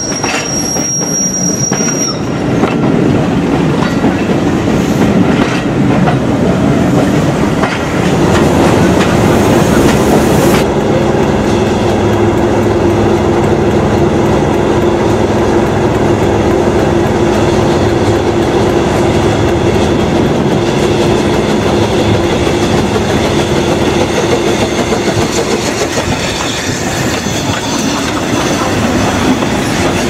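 Trains rolling slowly past, including a narrow-gauge steam locomotive hauling small four-wheeled carriages, wheels clicking over the rail joints. There is a high thin squeal for the first two seconds and a steady hum from about eight seconds in until near the end.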